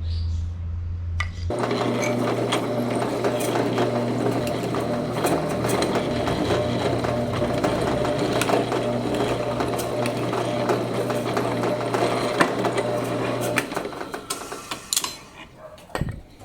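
An electric workshop power tool running steadily with a rattling, buzzing hum, then stopping about thirteen and a half seconds in, followed by a few knocks.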